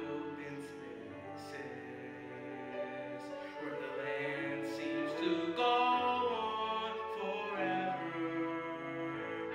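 A solo voice singing a musical-theatre song in long held notes over musical accompaniment.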